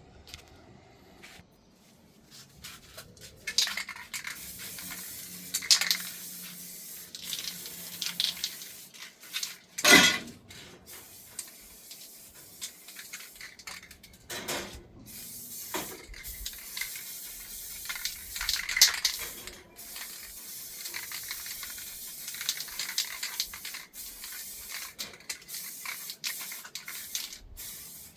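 Aluminium scoop parts and handle tubes clinking and knocking as they are handled and assembled. Scattered knocks, the loudest about ten seconds in, over a steady hiss.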